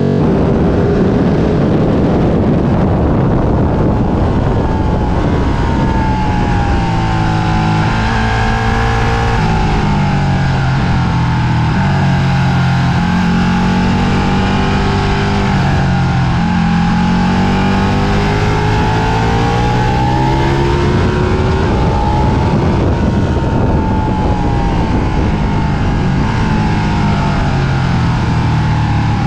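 Ducati Panigale 1299 S's 1285 cc Superquadro V-twin running hard at track speed, heard from a camera mounted on the bike, its pitch repeatedly rising under acceleration and falling when the rider slows for corners, over steady wind rush.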